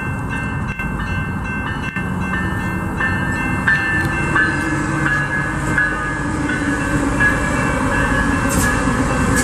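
Train running past: a steady rumble of wheels on rail, with a few sharp clicks from about four seconds in and faint held high tones over it.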